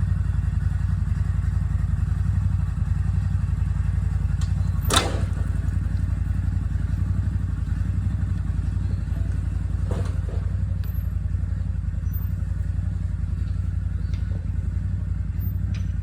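CFMoto ZForce 950 side-by-side's V-twin engine running steadily at low speed. A single sharp knock comes about five seconds in, with a lighter one near ten seconds.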